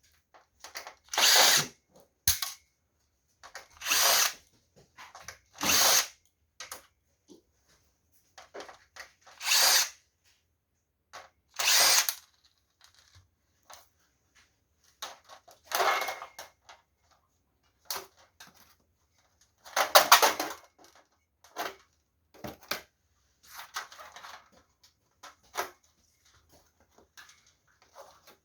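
Power drill-driver run in about ten short bursts with pauses between them, as when driving or backing out screws.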